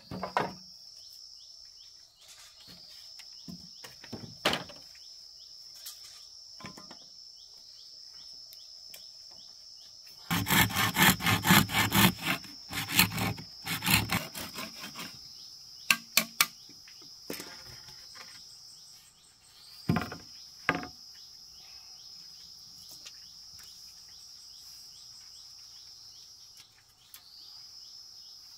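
A steady high-pitched drone of insects, with scattered sharp knocks. About ten seconds in comes a stretch of some four seconds of rapid rasping strokes, the loudest sound here, and then a few more knocks.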